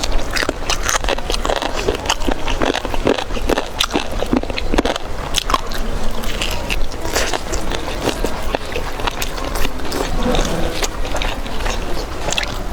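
Close-miked eating: a steady run of biting and chewing, with many sharp, irregular clicks and crackles.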